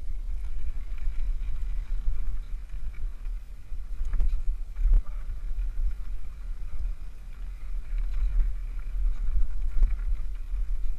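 Wind buffeting the microphone: a rough, unsteady low rumble that swells and dips throughout.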